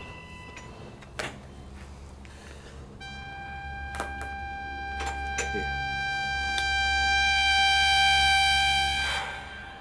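A few sharp clicks, then a single steady high tone rich in overtones starts about three seconds in, grows louder and cuts off suddenly near the end.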